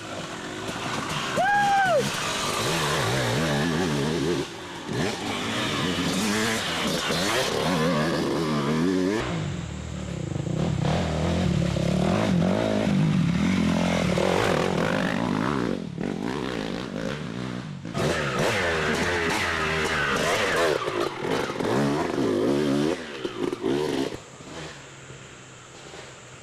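Dirt bike engine revving up and down over and over, its pitch climbing and falling with the throttle, with a few brief drops in level.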